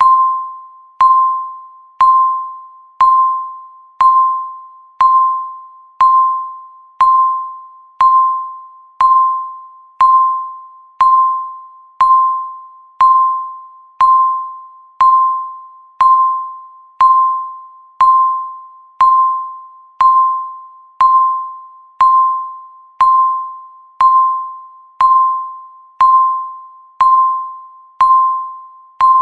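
Countdown timer beeping once a second: a single electronic tone of about 1 kHz that starts sharply and fades away before the next beep, evenly repeated.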